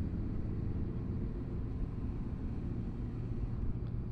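Motorcycle engine running steadily at low speed, a low, even rumble picked up by a camera mounted on the bike.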